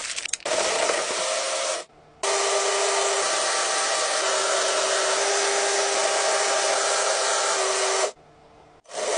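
LEGO electric motors driving a rolling-deck test rig over plastic rollers: a steady whirring and clattering with a thin steady whine. It cuts out briefly about two seconds in and again near the end.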